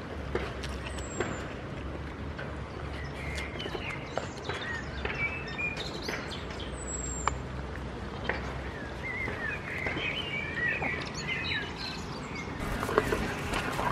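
Small birds chirping and twittering over a steady low rumble, with scattered sharp clicks; near the end, louder clattering and scuffling starts.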